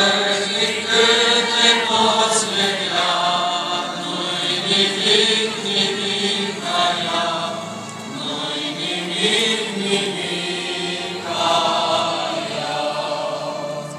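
Orthodox church chant sung by a group of voices, in long held phrases with short breaks between them.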